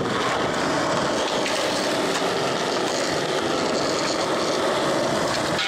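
Skateboard wheels rolling on smooth concrete, a steady, even noise.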